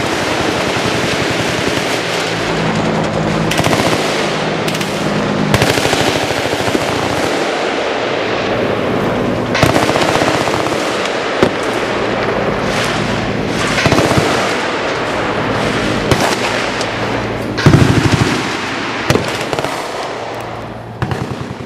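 Sustained automatic gunfire from machine guns, many rapid shots overlapping into an almost continuous rattle. Louder single bangs stand out several times, the biggest about three-quarters of the way through.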